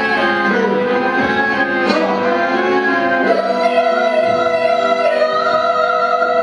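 Dangdut band playing live at a sound check: a saxophone holds long notes over electric guitar, with a man singing.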